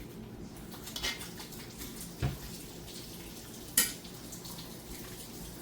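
Kitchen dishes and utensils knocking and clinking three times, the sharpest clink near the end, over a low steady hum.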